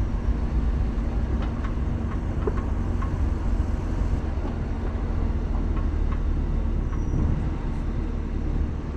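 Jeep Grand Cherokee WJ rolling slowly over a sandy wash, heard from a camera on its hood: a steady low rumble of the engine and running gear with a faint steady hum and a few light ticks.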